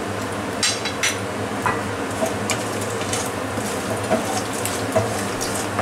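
Whole garam masala spices frying in hot oil and ghee in a kadai for tempering (phoron), with a steady sizzle. A wooden spatula stirs and knocks against the pan, giving a few sharp clicks in the first two seconds and lighter taps after.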